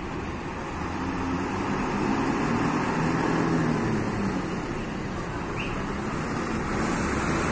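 Diesel engine of a large intercity bus pulling away from its shelter and rolling slowly closer, its engine note rising over the first couple of seconds and then easing off.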